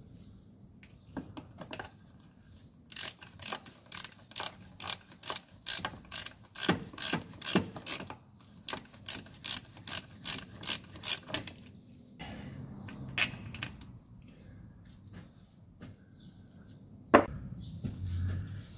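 Hand socket ratchet clicking in a quick run of strokes, about three clicks a second, as a nut on the starter is undone, with a single louder click near the end.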